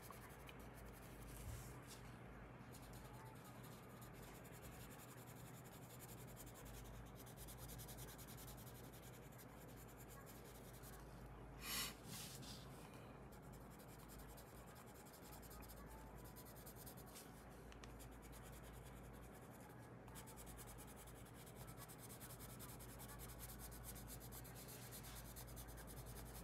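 Faint, steady scratching of a colored pencil shading on paper. About twelve seconds in there is a short, louder rustle as the sheet is turned.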